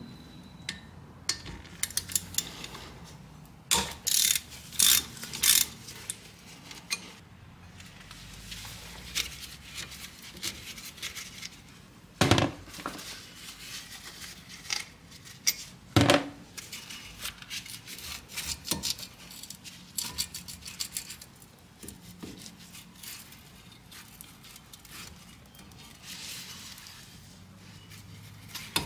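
Clicks and clinks of a socket wrench and spanner on steel brake-caliper bolts while the caliper is being unbolted. Irregular metallic clicking with a few sharper knocks, the loudest about 12 and 16 seconds in.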